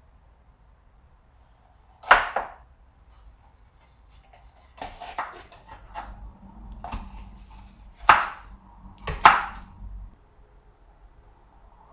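Kitchen knife slicing bell peppers on a wooden cutting board: irregular knocks of the blade through the pepper onto the board, the loudest about two, eight and nine seconds in, with lighter cuts between.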